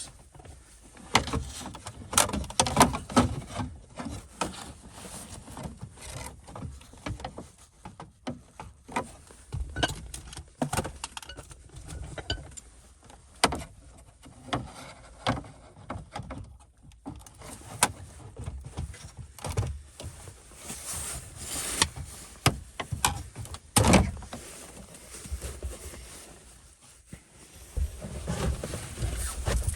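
Irregular clicks, knocks and rattles of hands working plastic trim, mounting hardware and wiring in a car's dashboard radio opening, with a sharper knock about 24 seconds in. Wind buffets the microphone with a low rumble underneath.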